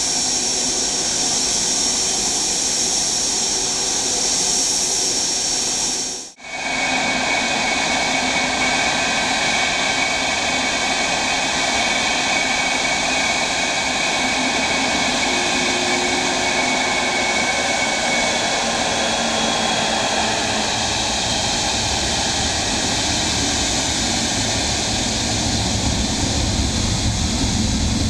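Steady jet-engine whine from a taxiing airliner. It drops out briefly about six seconds in, then gives way to the steady whine of an Air India Boeing 777-300ER's GE90 engines at taxi power. A deep rumble grows over the last few seconds as the 777 comes close.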